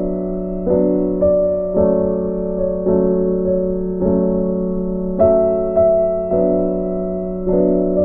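Background music: a gentle electric-piano melody, chords struck about once a second and left to ring.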